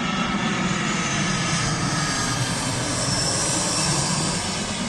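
Jet engines of a Finnair Airbus A320-200 on landing approach with its gear down, passing low overhead: a steady low rumble with a high whine over it, loudest about four seconds in and starting to fade near the end.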